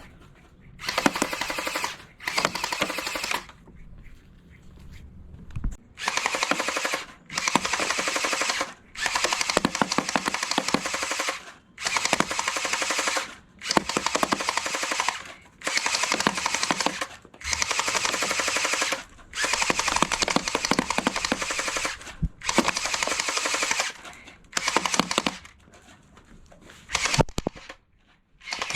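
Electric gel ball blaster pistol firing in automatic bursts: about a dozen rapid rattling volleys, each a second or two long, with short pauses between them.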